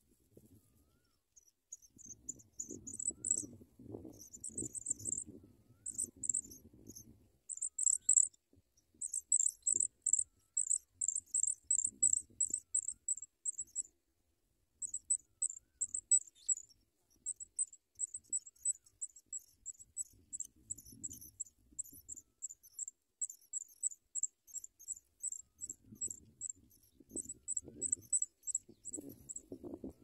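Pipit nestlings begging: a fast, even run of thin, high-pitched cheeps, about three a second, with a short break about halfway through. Soft rustling in the grass comes and goes underneath, early and near the end.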